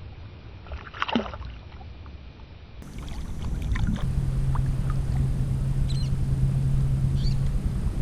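A boat motor running with a steady low hum over a low rumble, setting in about four seconds in, with a few short, faint high chirps above it.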